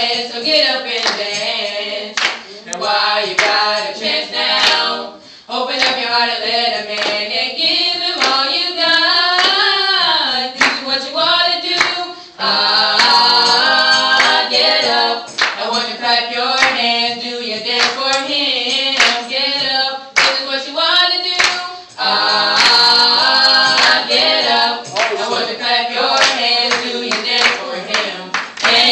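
A small vocal group of women's and a man's voices singing a song together in phrases, with sharp hand claps scattered through it.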